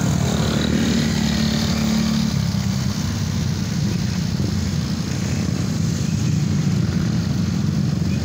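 Motorcycle engine running steadily while riding in slow traffic, with the hum of other motorbikes and cars around it.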